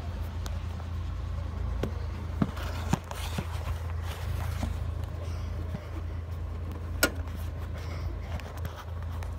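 A steady low hum with scattered sharp clicks and knocks, the loudest about two and a half, three and seven seconds in, as a handheld phone is moved and bumped among the engine-bay parts.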